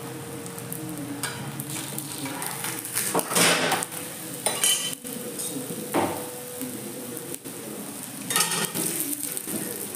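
Food sizzling in a steel pan on a gas stove, with a metal spatula scraping and clattering against the pans in a few short loud bursts, the loudest about three seconds in.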